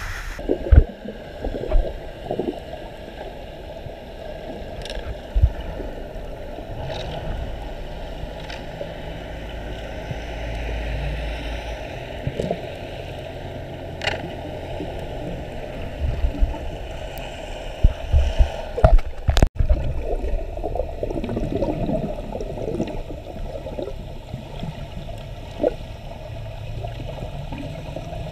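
Water sloshing and gurgling around a camera held underwater, muffled, with a few sharp knocks scattered through, the loudest about two-thirds of the way in.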